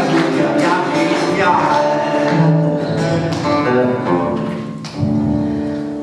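Male solo singing with instrumental accompaniment; about five seconds in the voice stops and a held chord rings on as the song ends.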